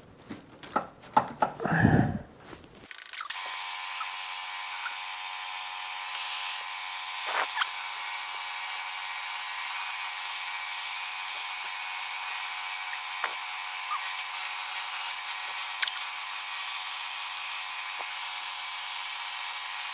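A few knocks and clicks of handling, then a small power tool starts about three seconds in and runs steadily with a high-pitched whine.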